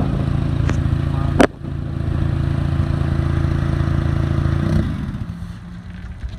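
Honda Civic's four-cylinder engine idling with a catless aftermarket header, a steady loud drone. A sharp click comes about a second and a half in, and the drone falls much quieter near the end.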